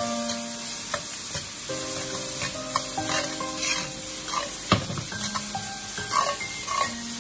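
Peas, minced pork, chili and garlic sizzling in a stainless steel wok as a metal ladle stir-fries them, with scattered clacks and scrapes of the ladle against the pan. The sharpest knock comes about two-thirds of the way through.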